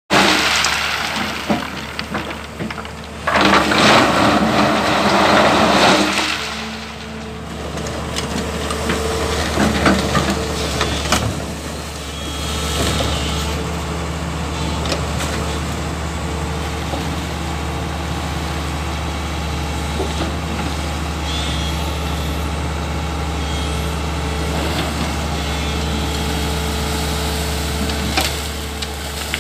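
Crawler excavator's diesel engine running steadily while the machine digs gravel out of water. A loud rushing noise lasts about three seconds, starting about three seconds in, and scattered knocks are heard now and then.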